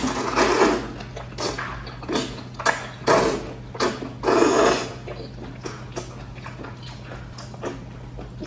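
Close-miked mukbang eating sounds: a run of irregular wet bites, chews and slurps, the biggest in the first five seconds and smaller clicky mouth noises after, over a steady low hum.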